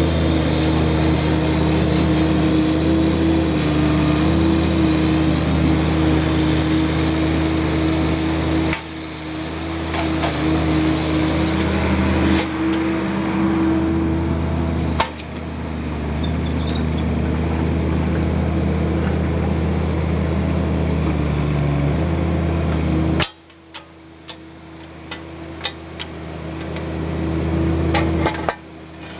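Bobcat mini excavator's diesel engine running steadily, its note dipping briefly twice. Near the end the engine sound falls away and a series of sharp knocks follows.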